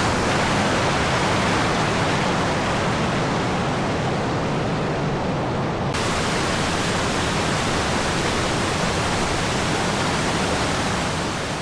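Waterfall rushing in a steady, dense roar of falling water. About six seconds in the sound turns suddenly brighter and hissier.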